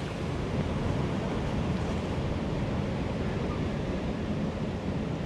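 Ocean surf washing against shoreline rocks, a steady rush of water with wind on the microphone.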